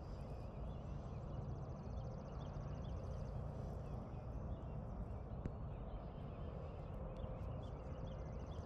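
Outdoor ambience with a steady low rush and scattered small bird chirps. Twice, a fast, evenly spaced high ticking runs for a second or two.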